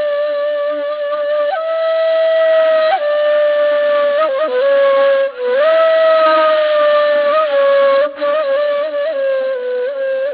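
Solo flute playing a slow melody of long held notes with small ornamental turns, over a breathy hiss.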